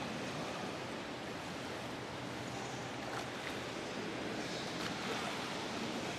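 Steady rushing water noise of a swimming pool as a swimmer kicks through it, with a few faint clicks.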